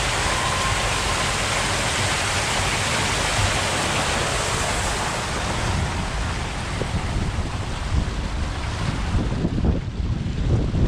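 Water rushing and spraying as an inflatable raft tube slides down a water slide, a steady loud hiss. About two-thirds of the way through the hiss thins and gusty wind buffeting on the microphone takes over as the raft speeds up.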